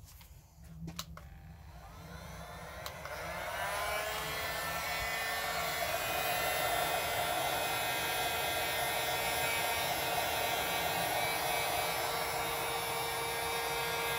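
Chicago Electric heat gun switched on after a few clicks: its fan motor spins up with a rising whine over the first few seconds, then runs with a steady whir of blowing air.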